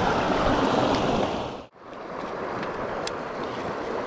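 Steady wash of a fast, shallow mountain creek running over rocks. It drops out abruptly about a second and a half in, then comes back quieter, with a few faint clicks.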